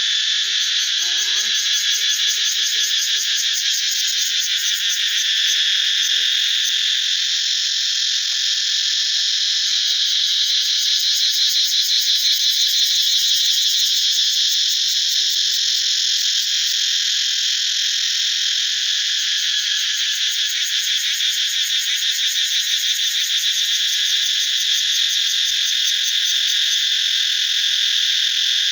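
A chorus of cicadas calling: a loud, steady, shrill buzz with a fast pulsing texture that never lets up.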